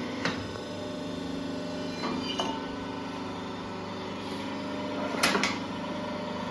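Steady hum of a workshop machine running, with a few sharp metallic clicks and knocks of tooling being handled, about one near the start, one around two and a half seconds in, and one just after five seconds.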